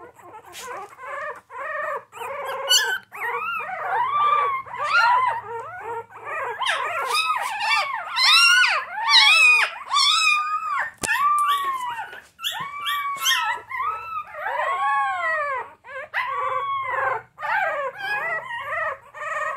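Young puppies whose eyes have just opened, crying and whining without a break: a steady run of short cries, each rising and falling in pitch, sometimes overlapping, loudest about halfway through.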